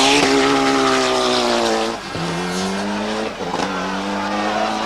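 Rally car engine running hard at high revs, its note briefly cut twice as the driver shifts or lifts off, possibly with a little tyre squeal.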